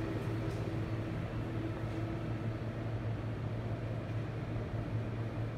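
Steady low hum and rumble of subway station ambience, with a faint held tone above it and no speech. It cuts off abruptly just after the end.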